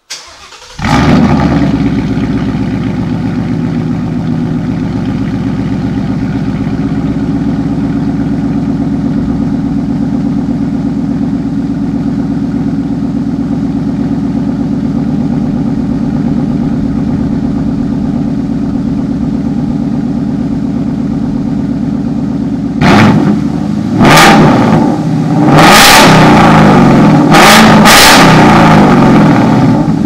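Mustang GT's 5.0 V8 through a Corsa double X-pipe and Roush axle-back exhaust, started cold with a loud flare, then idling steadily. From about 23 seconds in it is revved several times, the later revs held longer.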